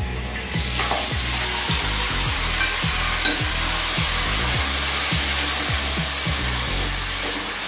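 Marinated chicken sizzling as it hits hot oil and ghee in a pressure cooker and is stirred with a spoon; the sizzle starts suddenly under a second in. A low, regular beat of background music runs underneath.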